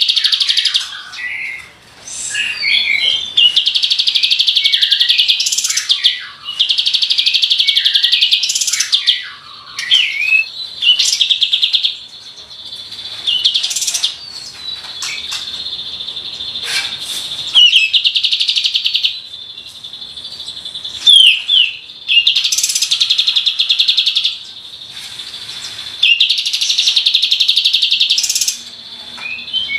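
Kapas tembak (Katem) songbird singing its rolling 'tembakan' song: a string of loud, very rapid high-pitched trills, each lasting one to two seconds, with short sweeping chirps in between.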